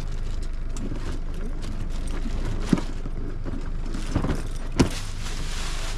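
Boat engine idling with a steady low rumble, with three sharp knocks in the second half.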